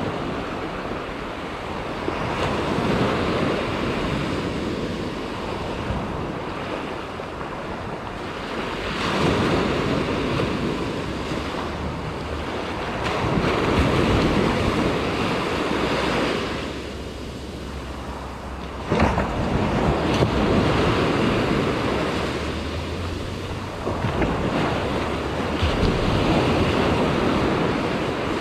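Surf breaking and washing up a sandy beach, swelling and ebbing with each wave every few seconds, one wave breaking suddenly louder about two-thirds of the way through. Wind buffets the microphone underneath.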